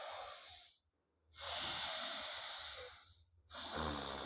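Forceful nasal breaths of alternate-nostril breathing (anulom vilom pranayama), each a hissing rush of air through one nostril. One breath ends shortly after the start, a second lasts almost two seconds, and a third begins about a second before the end, with short silent pauses between them.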